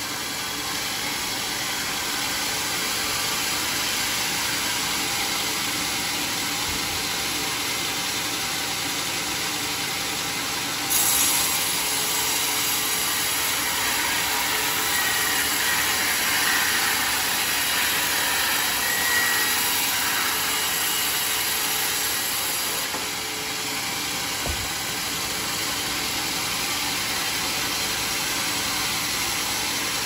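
Homemade circular-saw sawmill running steadily. For about twelve seconds in the middle, a cut through a teak log adds a louder, hissing sound.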